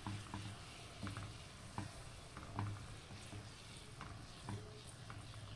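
Faint sizzling of caramel sauce with fresh cream as a wooden spoon stirs it round the pan, with scattered soft clicks and a low steady hum underneath.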